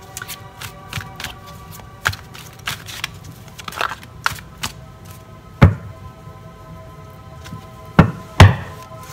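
Tarot cards being drawn and laid down on a table: scattered light taps and card flicks, with three sharper slaps about five and a half and eight seconds in. Soft background music with held tones underneath.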